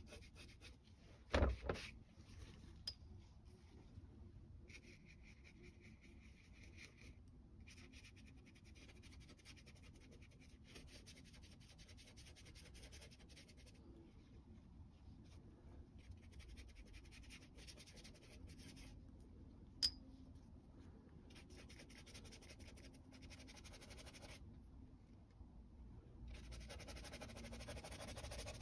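Faint scratchy brushing of a watercolour brush stroking across Saunders Waterford watercolour paper, coming in stretches of a few seconds. A single thump sounds about a second and a half in, and a sharp click about two-thirds of the way through.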